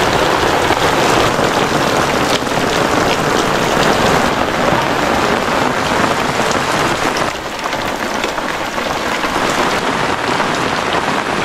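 Steady rain falling, with scattered individual drops ticking through the hiss.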